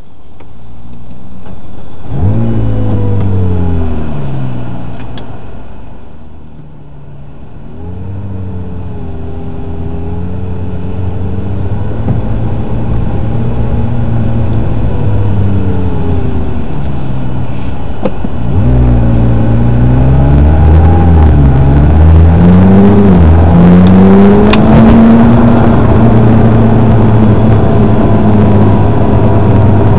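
McLaren MP4-12C's 3.8-litre twin-turbo V8 heard from inside the cabin. It catches about two seconds in with a rev flare that settles to idle, then pulls away with the revs rising and falling, and holds a steady note near the end.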